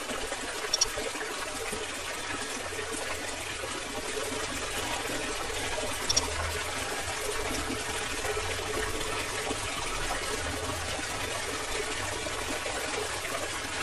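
Steady stream of water gushing out of the outlet pipe of a small homemade electric water pump. Two short clicks sound, about a second in and about six seconds in.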